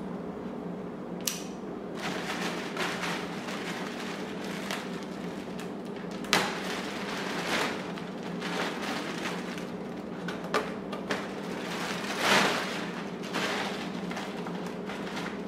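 Clear plastic bag crinkling and rustling as it is pulled and gathered off a glass aquarium, in a string of short crackles, loudest about six and twelve seconds in.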